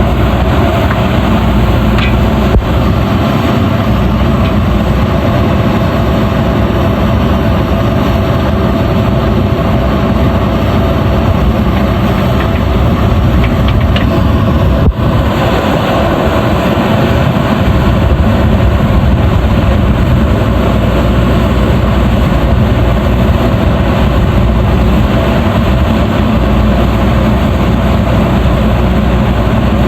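The diesel engine of a JCB backhoe loader running steadily while it digs, with one sharp click about halfway through.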